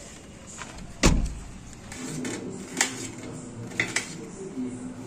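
A car door shut with one heavy thump about a second in. Later come a few sharp clicks, a knife striking a steel plate as cucumber is sliced.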